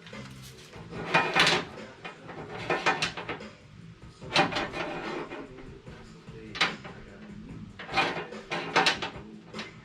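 Metal brackets clattering and scraping in short bursts as they are handled and slid into a pickup's bed-rail channels, with about six sharp knocks spread across the stretch.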